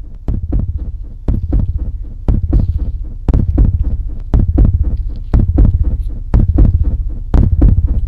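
Slow footsteps on the soft forest floor, about one a second, each a heavy low thud with crackling in between, picked up close by a handheld phone's microphone.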